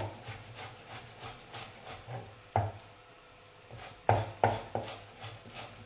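Kitchen knife chopping parsley on a wooden cutting board: irregular knocks of the blade on the wood, with a few louder ones about two and a half and four seconds in.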